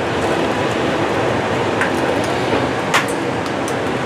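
Steady rushing kitchen noise while a dosa cooks on a hot pan, with a sharp click about three seconds in as eggs are cracked onto the dosa for egg dosa.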